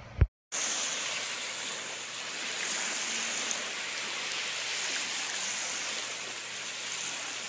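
Small waves washing up a sandy shore: a steady hiss of surf. A short pop about a quarter of a second in, then a moment of dropout before the surf comes in.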